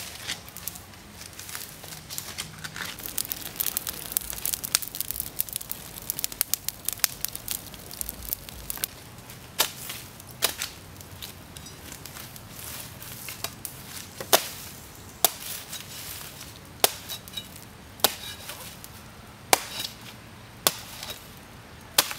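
A blade chopping into something hard: single sharp strikes, one every second or so, from about ten seconds in. Before them comes a stretch of dense crackling and rustling.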